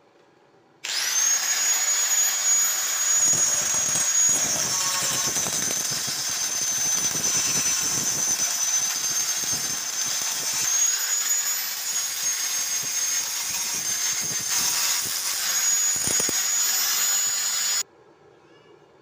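Angle grinder with a grinding disc grinding down weld beads on square steel tube: a loud, high, steady whine over the rasp of the disc on the metal, its pitch sagging slightly at times. It starts abruptly about a second in and cuts off abruptly near the end.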